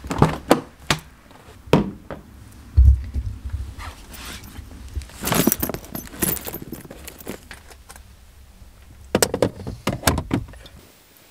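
Car door handle clicking and the door opening, then a heavy thump of the car door shutting about three seconds in. After that comes rummaging in a leather handbag, with keys jangling and a zip, and a few more clicks near the end.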